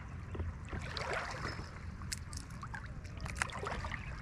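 Water splashing and trickling, with scattered sharp clicks and knocks.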